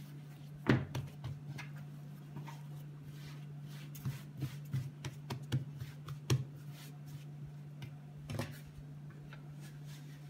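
Hands kneading and shaping a soft fruit-studded dough into a ball on a floured countertop: soft thumps and pats of the dough against the counter, a sharp one about a second in and a quick run of them from about four to six and a half seconds. A steady low hum runs underneath.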